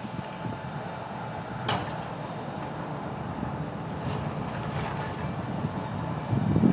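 Ten-ton grapple truck working a gondola of concrete crossties: its engine runs steadily while the grapple tongs are lowered onto the ties, with a sharp metallic clank about two seconds in, lighter knocks later, and a louder low rumble of knocking near the end.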